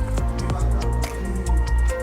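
Background music with a steady beat and a deep bass: an ambient electronic track.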